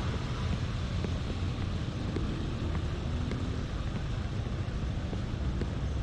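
Steady traffic rumble with wind buffeting the microphone.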